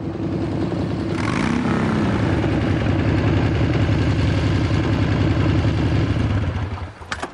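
Motorcycle engine running, its pitch rising and falling once about a second and a half in, then idling steadily before it cuts off about a second before the end. Two short clicks follow.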